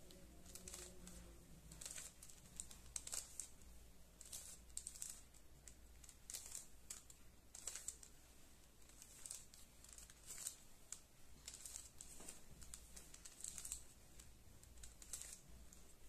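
Faint plastic clicking of a 3x3 Rubik's cube as its layers are turned in quick twists, in short irregular bursts about every second.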